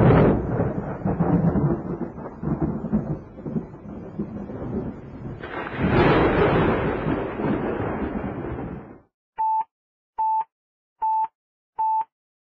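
A long rumbling noise like thunder that swells again about six seconds in and cuts off abruptly, then four short, evenly spaced electronic beeps all at the same pitch.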